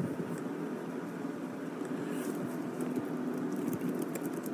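Steady low background hum with a few faint light clicks about two seconds in and near the end.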